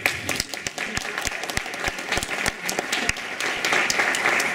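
Audience applauding: many hands clapping together, growing fuller toward the end.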